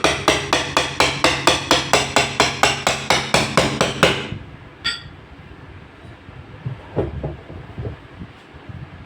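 Hammer striking repeatedly and fast, about five blows a second, stopping a little over four seconds in. One ringing metallic ping follows, then a few fainter knocks.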